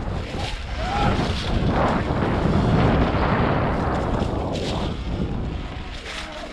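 Wind buffeting the microphone: a heavy, rough low rumble that rises and falls.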